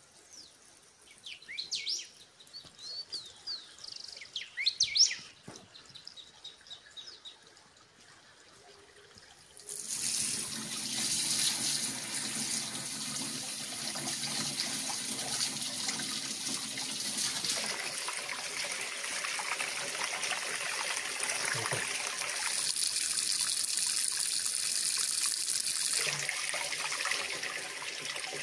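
Small birds chirping for a few seconds, then about ten seconds in a tap comes on and water runs steadily into a tadelakt (polished lime plaster) basin, the stream breaking and splashing as hands cup it to wash a face.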